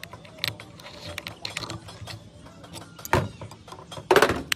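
Small metal tools clicking and scraping against an Isuzu truck compressor head's valve plate, with a sharp knock about three seconds in and a louder metal clatter near the end as the pliers are set down.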